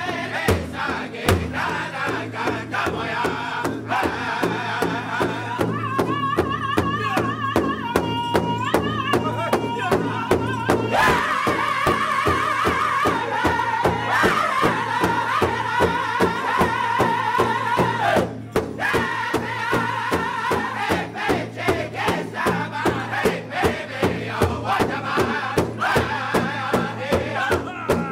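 Powwow drum group: several men singing a powwow song together in high voices while beating a large shared hide drum in a steady, fast, even beat. The singing breaks off briefly about two-thirds of the way through, then the song goes on.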